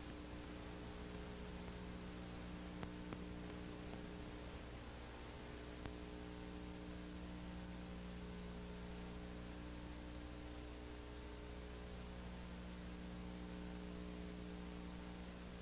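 Faint, steady electrical mains hum over a constant hiss, with a few faint clicks about three seconds in and again near six seconds.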